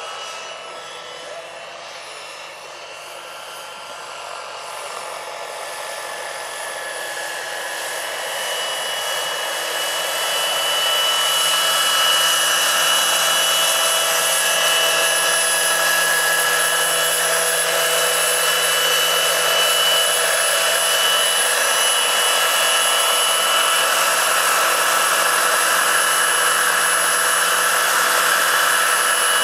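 Jakadofsky Pro 6000 model gas turbine and rotor of a large RC scale Eurocopter EC-120 helicopter, a steady high turbine whine with several whistling tones over rotor noise. It grows louder over the first ten seconds or so as the helicopter comes close, then holds steady as it hovers and sets down.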